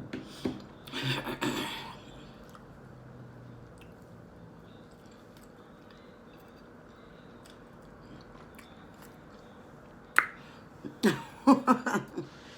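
Close-miked chewing and mouth sounds of someone eating a sandwich, in short bouts about a second in and again near the end, with a long quiet stretch between.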